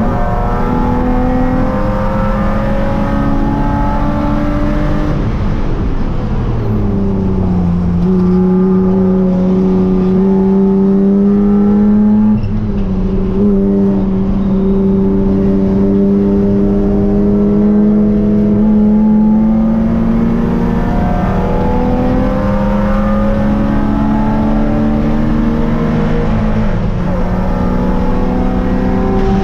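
BMW E36-based Spec3 race car's straight-six engine heard from inside the stripped cockpit at racing speed: revs climb in runs, drop sharply about six seconds in as it brakes and downshifts, then hold high in a long full-throttle pull, with another drop near the end.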